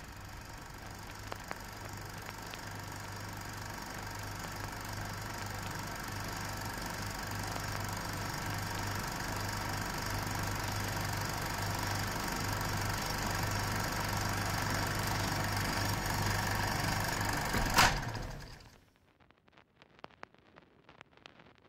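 A steady droning rumble with a low hum slowly grows louder. A sharp click near the end is followed by a sudden cut to near silence, with only faint scattered crackles after.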